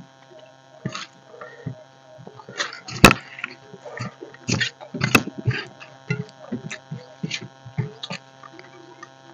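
Eating by hand from stainless steel plates: fingers scooping rice against the metal, with short clinks and chewing and mouth sounds, the sharpest clink about three seconds in. A steady electrical hum runs underneath.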